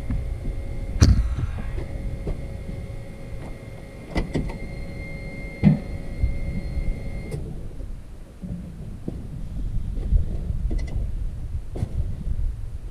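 Steady whine of a tractor's electric fuel pump running, cutting off suddenly about seven seconds in. Several sharp knocks and clunks come over it, the loudest about a second in, over a low rumble.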